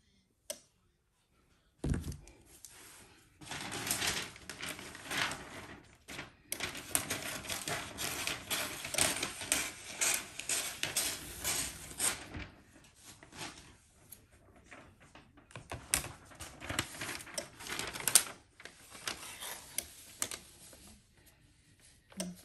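Sheet of stiff butcher paper rustling and crackling as it is handled, in two long spells with a quieter pause midway.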